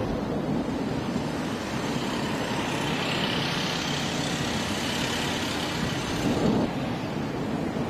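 Cumbre Vieja volcano on La Palma erupting, a continuous low rumble, with a hiss that swells and fades in the middle.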